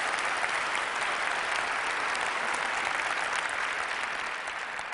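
Theatre audience applauding steadily, fading toward the end.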